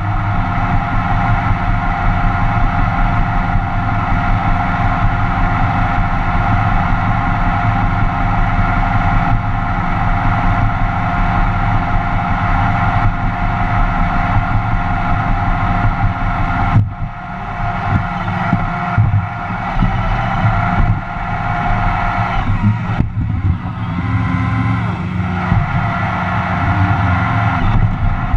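Roomba robot vacuum running close up: a steady motor whine from its vacuum fan and brushes over a rougher low rumble. About halfway through the sound drops a little and turns uneven, shifting several times.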